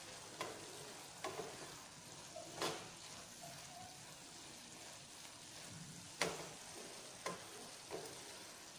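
Sprouted moth bean usal sizzling faintly in the pan, with a spatula knocking and scraping against the pan about six times as it is stirred.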